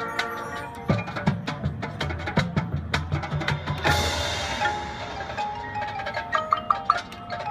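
Marching band playing. A sustained chord gives way within the first second to percussion: sharp strikes and low drum hits, a cymbal crash about four seconds in, then quick mallet-keyboard notes near the end.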